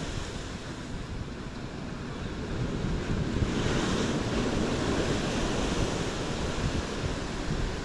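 Hurricane-driven surf breaking on the shore, a continuous roar of waves with wind buffeting the microphone; a bigger wave surges and crashes about three and a half seconds in.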